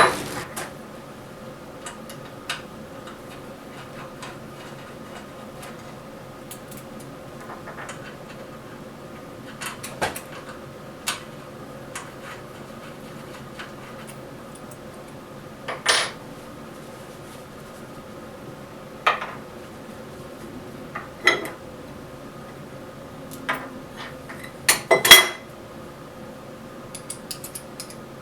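Scattered metal clinks and knocks, a few seconds apart, from a wood lathe's tool holder (tool rest) being handled and fitted onto the lathe; the loudest, a quick double clank, comes near the end.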